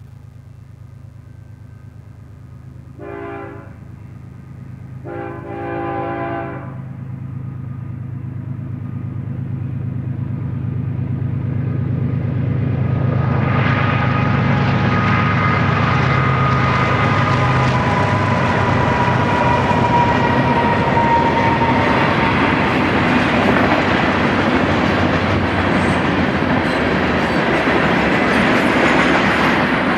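Diesel locomotives of a BNSF freight train approaching with a steady engine drone, the horn sounding twice: a short blast about three seconds in, then a longer one about two seconds later. About thirteen seconds in the locomotives pass close by, and the loaded freight cars follow with a loud, steady rumble of wheels on rail and clickety-clack.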